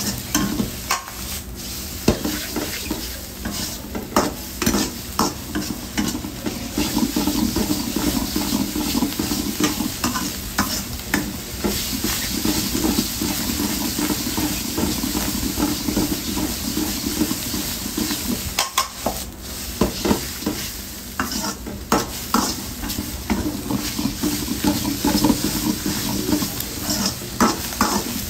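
Udon noodles sizzling in a hot wok while a steel ladle stirs and tosses them, the ladle scraping and clinking against the pan again and again.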